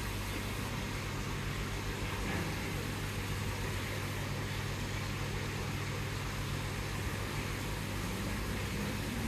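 A steady low mechanical hum under a faint hiss, with no change or sudden sounds.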